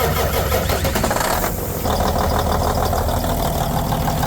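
Detroit Diesel Series 60 inline-six diesel of a semi truck running steadily. Its sound changes character about a second and a half in.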